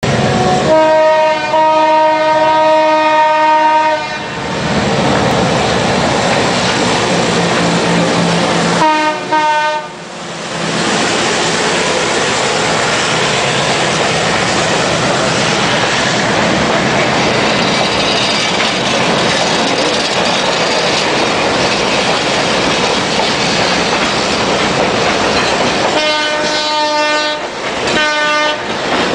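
Diesel locomotive horn of a passenger train, a GE U11B, sounding one long multi-tone blast, then a short one about nine seconds in. Between the blasts comes the steady noise of the passenger cars rolling past close by on the track, and near the end the horn sounds two more short blasts.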